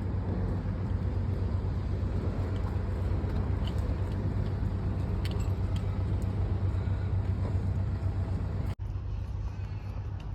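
Steady road traffic noise with a low rumble. The sound drops out for an instant about nine seconds in.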